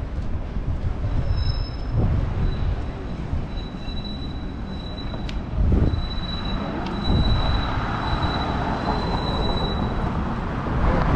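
Streetcar wheels squealing on the rails: a thin, high, steady squeal that comes and goes, strongest in the second half. Underneath runs a steady street-traffic rumble, with a car passing near the end.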